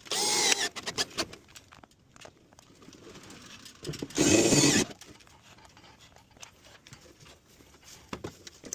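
Cordless drill driving screws through a gutter guard into the gutter: two short bursts of the motor spinning, one at the start and one about four seconds in, with light clicks and taps between.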